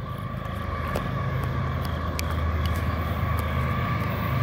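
Diesel freight locomotives approaching, a steady low engine drone growing gradually louder.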